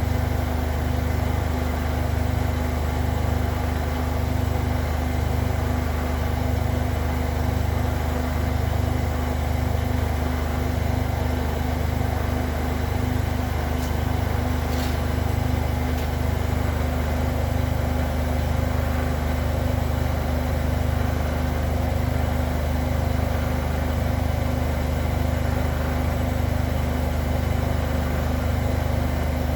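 Zanker EFX 4875 washing machine in its final high-speed spin, a steady low hum with a slow regular pulsing.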